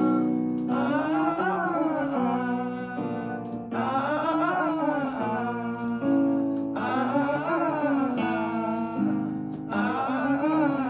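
A singer sings a vowel warm-up exercise over guitar accompaniment. The voice runs up and down in short scale-like phrases about every three seconds, with steadier held notes between them.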